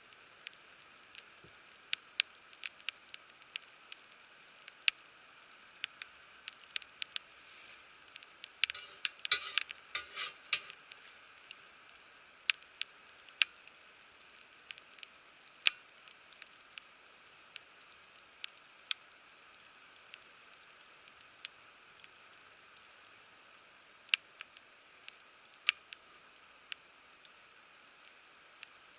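Wood fire crackling in a fire pit: scattered sharp pops over a steady soft hiss, with a quick run of crackles about nine seconds in.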